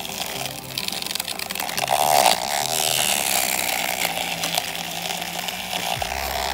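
Handheld battery-powered whisk mixer (milk frother) on speed one, its small motor buzzing steadily as the coil whisk spins through instant coffee and hot water in a plastic cup, whipping dalgona coffee.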